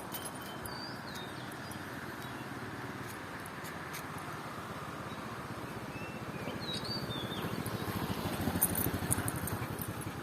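Small motorcycle or scooter engine running, growing louder about seven seconds in, with a few bird chirps over it.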